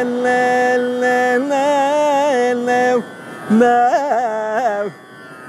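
A man's voice singing a Carnatic aalaapanai in raga Bhairavi over a tambura drone: long held notes bent with shaking gamaka ornaments, in two phrases with a short breath about three seconds in. The voice stops near the end, leaving the drone and the surf.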